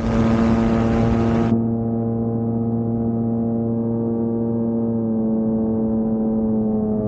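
Rotax engine of a Dominator gyroplane running steadily at a constant pitch in flight. A rush of wind noise covers the first second and a half and then cuts off.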